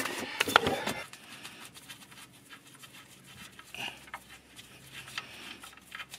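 Handling noise on a tractor: a burst of rustling and knocks in the first second, then faint, scattered scrapes and clicks as a gloved hand works at a fitting on the tractor's underside.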